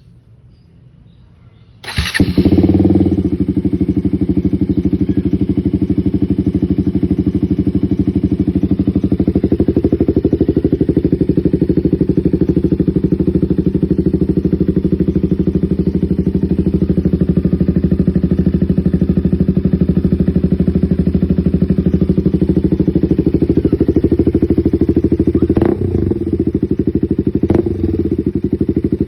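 KTM Duke 200 single-cylinder four-stroke engine with an aftermarket SC Project exhaust cold-starting on a morning: it fires about two seconds in and settles into a steady idle. Two brief knocks sound near the end.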